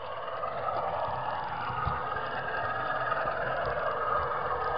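Model train running along the track, heard from a camera riding on one of its wagons: a steady whir and rattle of small wheels on model rails and the locomotive's motor, with faint low knocks, slowly growing a little louder.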